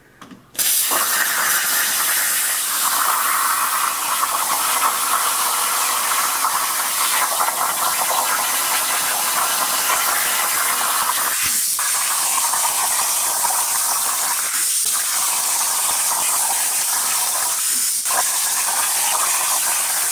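Hypertherm plasma cutter on a CNC table cutting quarter-inch steel plate at 45 amps: a loud, steady hiss of the arc and air. It starts about half a second in and dips briefly three times.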